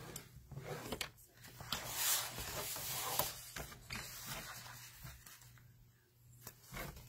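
A paper trimmer's scoring blade is drawn along a sheet of patterned cardstock, a scraping, hissing stroke, with the paper sliding and a few light clicks from the trimmer.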